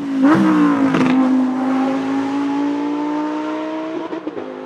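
Lamborghini Huracán EVO Spyder's 5.2-litre naturally aspirated V10 passing close under acceleration. It is loudest just after the start, with a drop in pitch as it goes by and two sharp cracks in the first second. A steady, slowly rising note then fades as the car pulls away, with a brief break about four seconds in.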